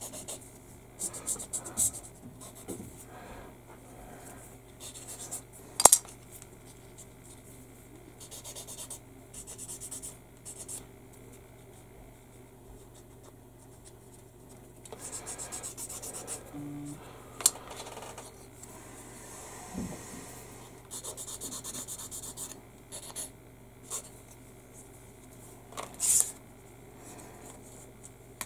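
Fine sanding stick rubbing over a grey plastic model-kit part in short, irregular scratchy strokes, smoothing down where the attachment points were. A few sharp clicks come through, the loudest about six seconds in.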